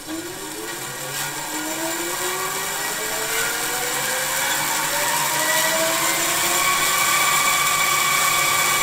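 Vintage 24-inch Robinson bandsaw starting up: the motor and wheels spin up to speed with a whine that rises in pitch and grows steadily louder, then settles into a steady run. The sound is called an awesome sound, not as loud as you would think.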